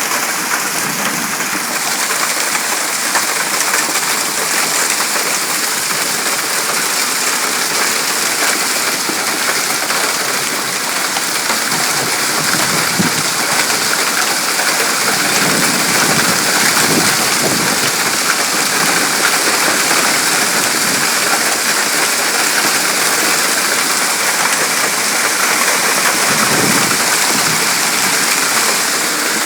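Hailstorm: hail and heavy rain pelting down, a loud, steady hiss of countless small impacts. Deeper rumbles swell up a few times around the middle and near the end.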